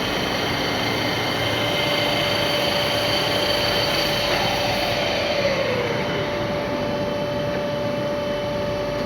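Milling machine with an Atlas SST 320 rotary table running, milling a hexagon nut: a steady machine noise with faint high steady tones. Midway, a tone glides downward over about two seconds, and the hiss at the top thins out.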